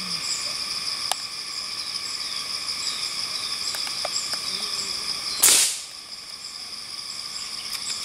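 A single shot from a pre-charged pneumatic air rifle about five and a half seconds in: one sharp crack with a short tail. Under it runs a steady high drone of insects.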